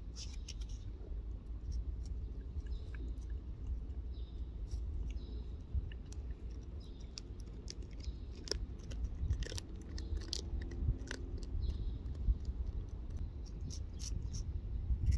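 A cat licking and mouthing an emptied plastic squeeze-tube of lickable cat treat, making small wet clicking licks at an irregular pace. A steady low rumble runs underneath.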